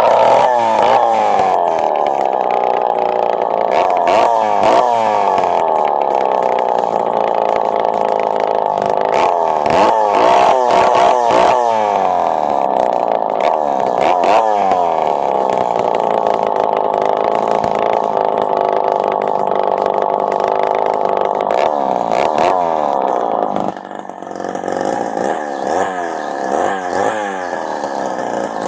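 Homelite XL Automatic chainsaw powerhead's two-stroke engine running fast, revved up and down several times, then settling to a lower, quieter idle about 24 seconds in. It is running on a newly fitted NGK resistor plug cap and replacement spark plug, which cured its lack of spark.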